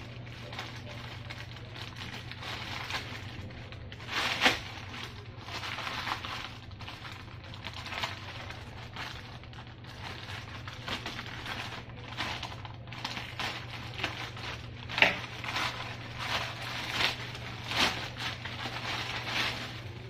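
Plastic courier mailer bag crinkling and crackling as it is cut open with scissors and pulled apart, in irregular bursts with sharp peaks about four and fifteen seconds in. A steady low hum runs underneath.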